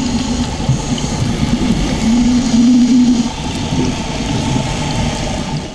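Underwater ambience heard through a camera housing: a steady low rumble with a wavering low tone that glides up and down, held longest a couple of seconds in.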